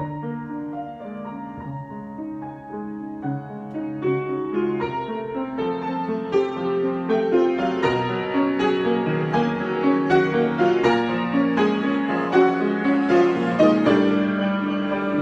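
Solo piano improvisation; the playing grows busier and louder after the first few seconds.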